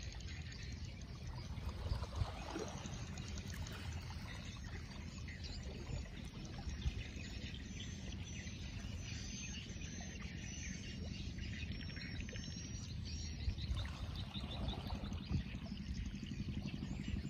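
Riverside outdoor ambience: a steady low rumble of wind and water, with birds chirping now and then and a run of short high chirps in the middle.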